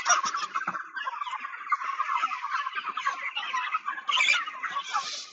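A flock of broiler chickens calling together: a dense, continuous chatter of many overlapping short calls.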